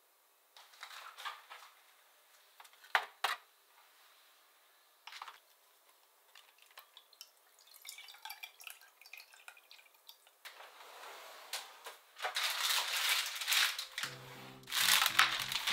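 Light clicks and knocks, then cold-brewed dashi poured from a bottle into a plastic measuring jug, with a steady rushing sound growing louder. Background music comes in near the end.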